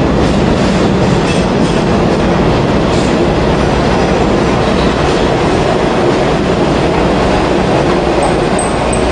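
Subway work train hauled by a diesel locomotive passing close through an underground station. The wheels rumble steadily on the track with a few sharp clacks over rail joints, and a faint high wheel squeal comes in near the end.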